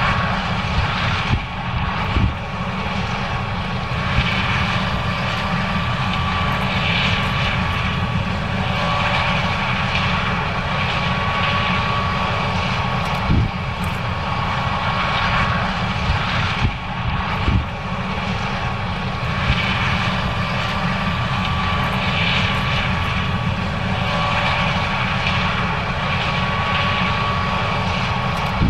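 John Deere S670 combine running steadily while harvesting corn: a constant machine drone with a steady whine, and a few short thumps.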